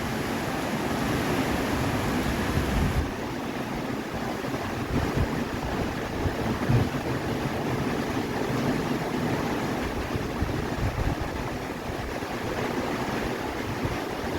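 Rushing floodwater of a river swollen by flash flooding, a steady dense rush with wind buffeting the microphone. About three seconds in, the sound turns slightly quieter and duller.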